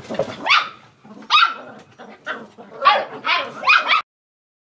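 Australian Terrier puppies yapping in a quick series of six or seven short, high barks. The sound cuts off abruptly near the end.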